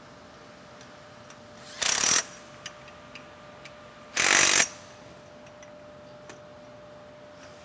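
Cordless drill run in two short bursts, each under half a second and about two seconds apart, driving fasteners on a steel support tube. Light metallic clicks come between the bursts.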